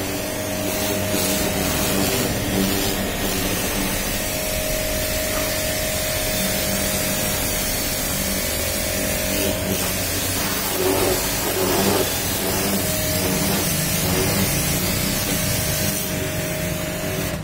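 Pressure washer running with a steady motor hum while its jet hisses as it sprays water over a car's panels and wheel, rinsing off the foam.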